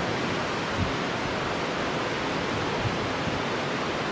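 Steady rushing of a fast river's rapids, an even, unbroken wash of water noise.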